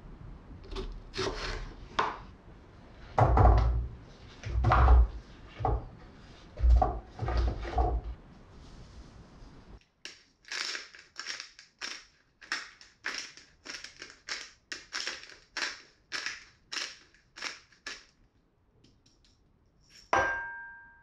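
Small kitchen knife slicing fresh strawberries on a wooden cutting board, with a few heavier knocks of the blade against the board. Then a pepper grinder is twisted over the pot, about two crunching strokes a second for some eight seconds, and a short metallic ring sounds near the end.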